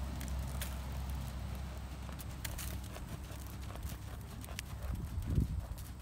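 Hoofbeats of a horse moving on arena sand: soft, uneven thuds and scattered light clicks, with a few stronger thuds about five seconds in, over a steady low rumble.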